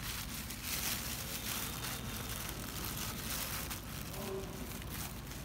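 Thin plastic bag crinkling and rustling in irregular bursts as a hand presses and rolls a lump of bread bait through powdered pig-feed bran inside it.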